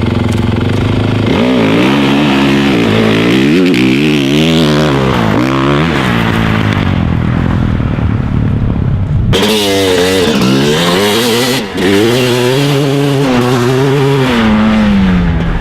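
Motocross dirt bike engines revving, their pitch rising and falling again and again as the riders work the throttle and gears. The sound changes abruptly about nine seconds in.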